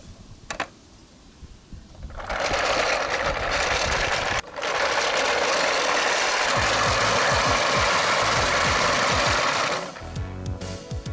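A small motor whirring steadily for about seven and a half seconds, with one brief break partway through, after a few light clicks. Music comes in near the end.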